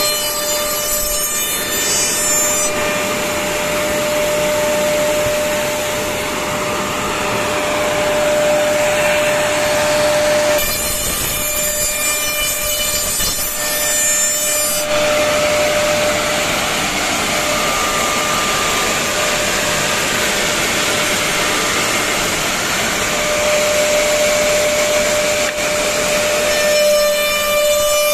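Double-end, four-spindle CNC tenoning machine running, its spindles giving a steady whine while the cutters machine tenons on the ends of wooden pieces. The dense cutting noise comes and goes in long stretches.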